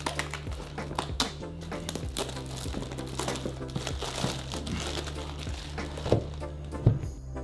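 Plastic wrap on a phone box crinkling and crackling as it is cut open and pulled off, with two sharper cracks near the end, over background music.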